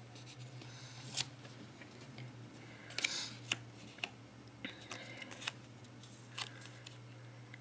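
A paper sticker peeled from its backing and pressed onto a planner page: scattered soft paper rustles and light taps, the longest rustle about three seconds in, over a faint steady low hum.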